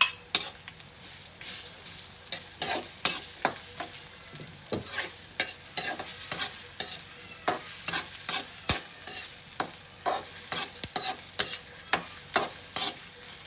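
Metal slotted spatula scraping and tapping against a metal wok as diced onions are stirred in hot oil, in irregular strokes about two a second, with a soft sizzle of frying underneath.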